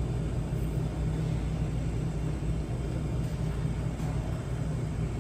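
Steady low rumble with a hum underneath: the background noise of a store interior.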